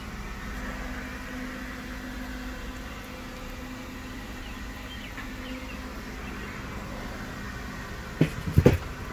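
A steady low hum, then near the end a few sharp metallic clanks as the steel lid of a Weber kettle grill is set back onto the bowl.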